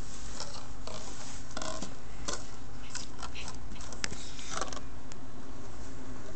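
Rustling and scattered small clicks from the phone being handled, over a steady low hum.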